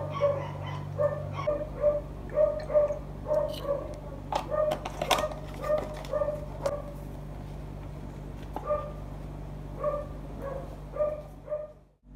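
A dog yapping in quick, short, high yaps, two or three a second, thinning out in the second half and fading away near the end. A few sharp clicks come about four to five seconds in, over a steady low hum.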